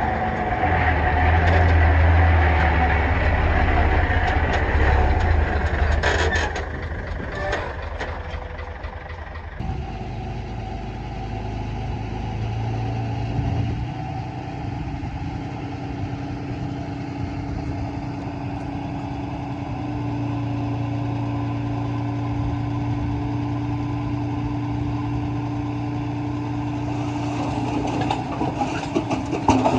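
Diesel engines of a dump truck and bulldozer running, loudest and deepest for the first six seconds. About ten seconds in the sound changes abruptly to a steadier engine drone, with some knocking and rattling near the end.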